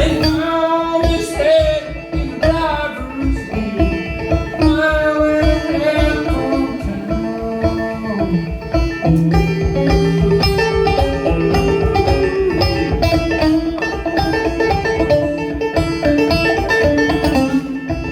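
Clawhammer banjo playing an instrumental break of an old-time tune, a fast, steady run of picked notes, with a sliding melody line over it in the first few seconds.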